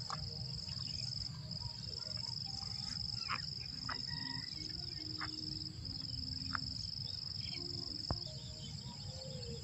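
Insects in the rice paddies trilling in one steady high-pitched drone, with a low rumble underneath and a few short faint chirps.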